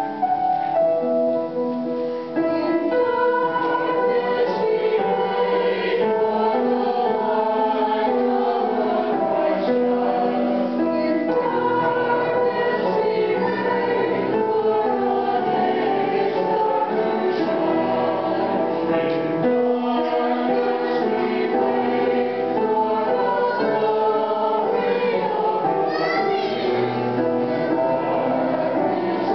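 Small mixed church choir of men's and women's voices singing a hymn together, several voices sustaining notes at once.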